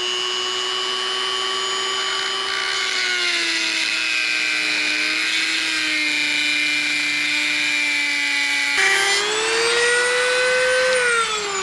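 Dremel rotary tool with a worn-down cut-off wheel grinding an oil groove into a line-bore-bar bushing: a high steady motor whine. The pitch sags about three seconds in as the wheel bites, jumps back up near nine seconds, and falls away near the end as the tool slows.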